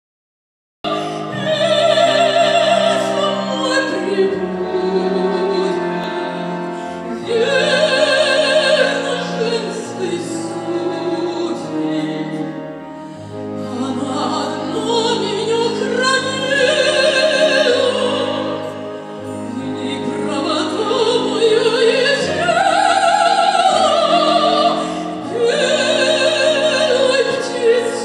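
A woman singing in operatic style with vibrato, accompanied by a brass and wind band with French horns; the music begins about a second in.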